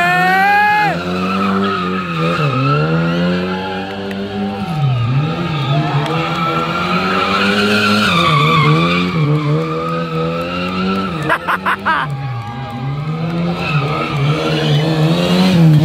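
Classic Lada saloon's engine revving hard, dropping back and revving again every two to three seconds, with its rear tyres squealing as the car drifts around in circles.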